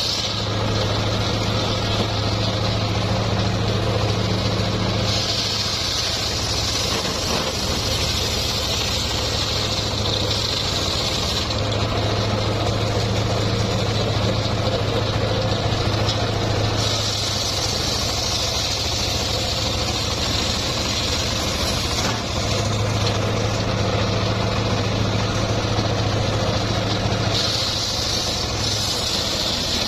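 Homemade engine-driven circular sawmill running, its engine humming steadily between cuts. Three times, for about five seconds each, the blade bites into teak: a higher hissing whine comes up while the low hum drops under the load.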